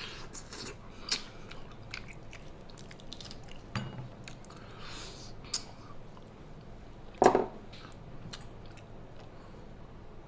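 Close-up mouth sounds of someone biting into and chewing a charcoal-grilled pig's trotter, with scattered small crackles and clicks. One short, louder sound comes about seven seconds in.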